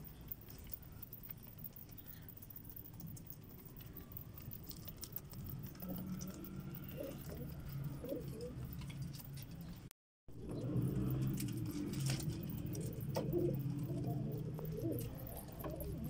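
Domestic pigeons cooing, several low cooing calls overlapping, building up in the second half, with a brief total cut-out of sound about ten seconds in.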